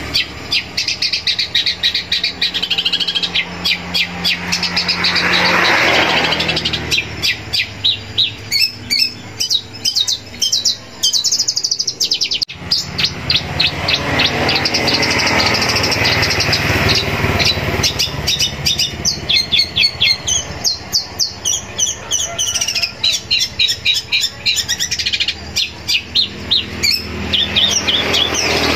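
Long-tailed shrike (cendet) singing hard, a fast, varied song built from mimicked calls of other birds: rapid runs of high, chattering notes broken by harsher stretches, with a momentary dropout near the middle.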